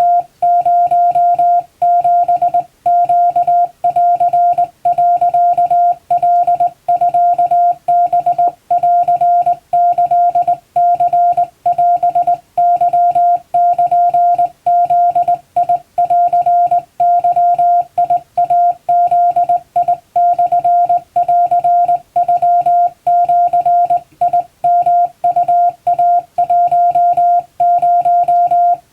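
Japanese wabun Morse code sent by hand on a straight telegraph key: a single steady mid-pitched beep keyed on and off in dots and dashes, with short pauses between characters.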